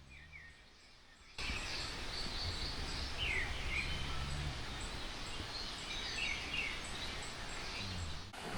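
Outdoor morning ambience with birds chirping: short falling chirps over an even background hiss that jumps up suddenly about a second and a half in, with faint high ticking repeating at a steady pace.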